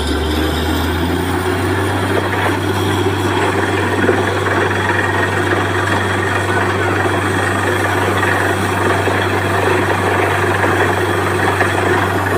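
Truck-mounted borewell drilling rig running steadily, with a deep engine and compressor drone and a rushing noise as water and mud are blown up out of the bore, which has struck water.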